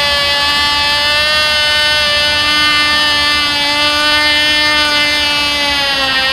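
Cox TD .049 glow engine on a control-line model plane running in flight: a steady, high-pitched buzz whose pitch wavers slightly as the plane circles, dipping a little near the end.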